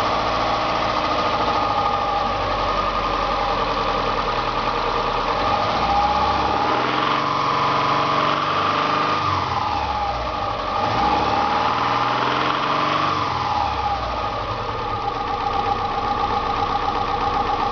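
2000 Subaru Impreza RS's SOHC EJ25 2.5-litre flat-four engine idling and revved up twice in the middle, with the rattle noise the owner is trying to pin down.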